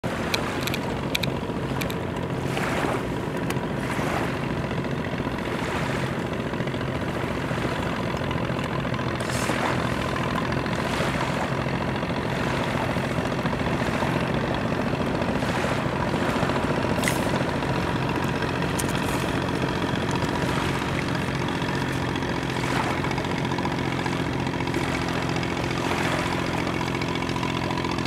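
A boat engine running steadily: an even, unbroken drone with a steady hum. A few brief sharp sounds sit over it, several of them in the first second and a half.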